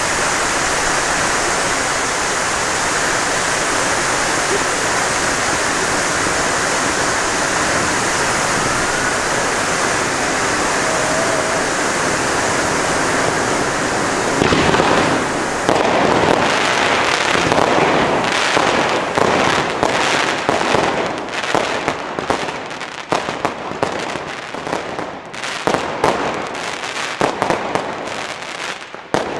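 Firework fountains (ground volcanoes) spraying sparks with a steady loud hiss. About halfway in, firework batteries start firing, a rapid uneven run of shots and bangs that goes on to the end.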